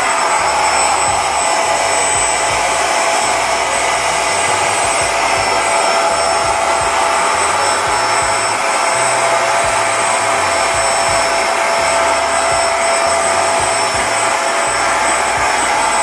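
A small electric motor running steadily without a break, with a continuous whirring rush.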